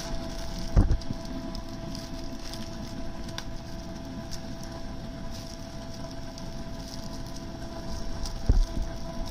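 Small plastic spice sachets crinkling and rustling as they are torn open and the powder is shaken out into a clay dish, with a dull thump about a second in and another near the end, over a steady background hum.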